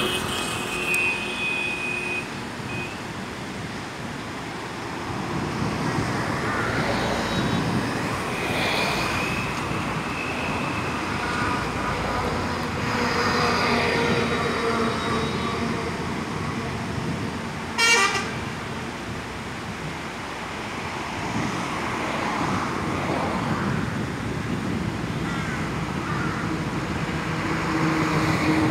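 Road traffic: vehicles running past with occasional horn toots. A brief sharp rattle about two-thirds of the way through.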